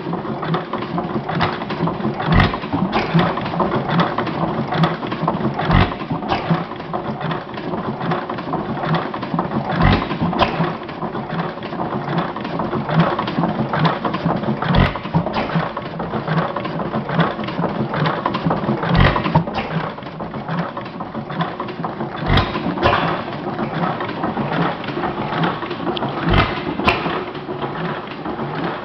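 Model hit-and-miss gas engine with hot-tube ignition running, firing with a heavy thump about every four seconds and coasting on its flywheels between firings. Its valve gear and linkage clatter steadily throughout.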